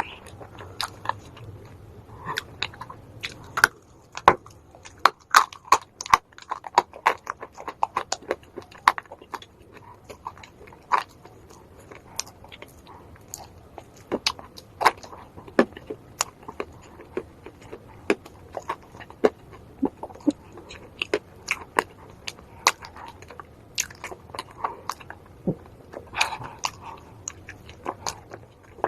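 Close-miked biting and chewing of dry edible clay (calabash chalk, known as calaba or uko), with many sharp, irregular crunches and snaps as it breaks between the teeth.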